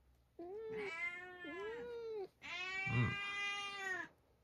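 Domestic cat meowing: two long, drawn-out meows, one after the other. The first wavers up and down in pitch; the second is steadier and a little louder.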